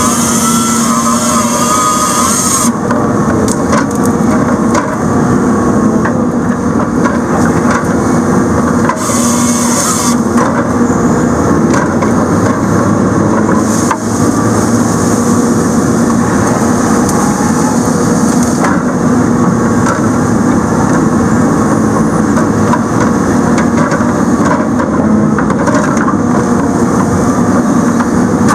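Diesel engine and hydraulics of a log loader working steadily under load while its Rotobec grapple saw runs in short bursts, cutting through a big stump on a pushed-over tree. The saw is bumped a little at a time so the heavy stump doesn't pinch or drop on the bar.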